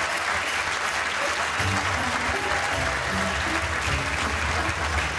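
Studio audience applauding steadily, with entrance music and a bass line coming in about a second and a half in.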